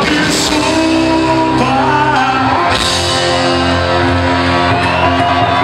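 Live pop-rock band playing with a lead singer on microphone, the band and voice holding long notes from about a second in.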